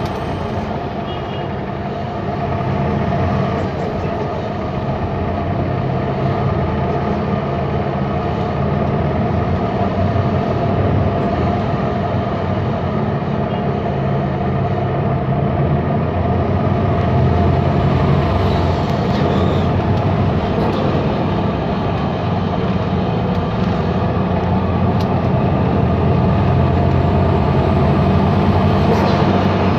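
A MAN Lion's City CNG city bus under way, heard from inside: its MAN E2876 gas engine hums steadily under the road and running noise. It grows gradually louder through the first half, then holds steady.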